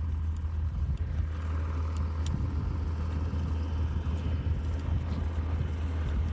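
Diesel tractor engine running steadily, a constant low drone.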